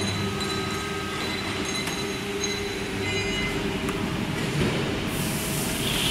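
Horizontal metal band saw running with a steady mechanical hum and whine. A high hiss joins about five seconds in.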